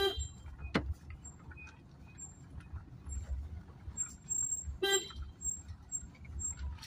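A car horn toots briefly twice, about five seconds apart, over the steady low rumble of a small car driving slowly on a rough unpaved lane, heard from inside the cabin.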